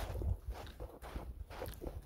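Hiking footsteps on a dry dirt and gravel trail at a steady walking pace, over a low rumble on the phone microphone.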